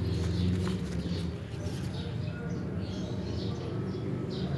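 Small birds chirping in short repeated calls, over a steady low hum.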